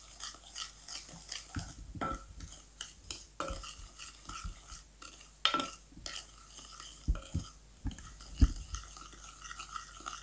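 Spatula stirring melted butter and sugar in a bowl: a run of irregular scrapes and taps against the bowl, with a few louder knocks between about five and eight and a half seconds in.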